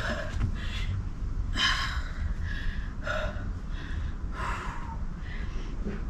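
A woman breathing hard from exertion during squats: sharp, gasping breaths about every second and a half over a steady low rumble.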